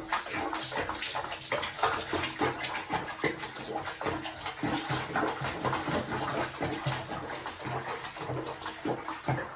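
Water sloshing and splashing in a small basin around a cat being bathed, a quick irregular patter of small splashes.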